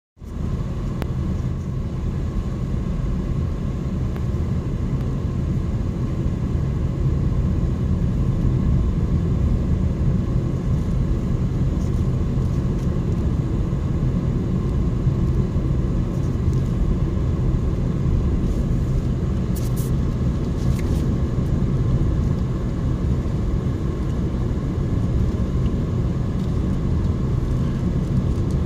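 A car driving along a sealed road: a steady low rumble of engine and tyre noise.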